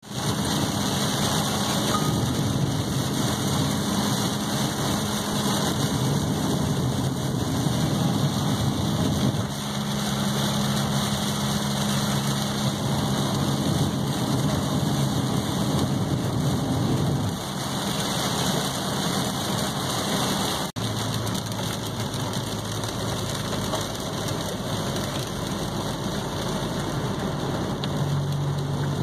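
Heavy rain beating on a car's windshield and roof, heard from inside the cabin, over the steady hum of the car's engine and tyres on the wet road. The engine's pitch shifts a few times, and the sound drops out for an instant about two-thirds of the way through.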